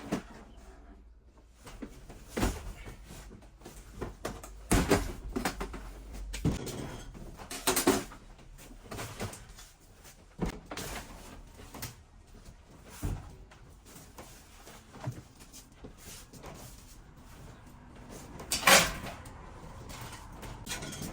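Tools and gear being moved and set down: a series of irregular knocks and clunks, the loudest one near the end.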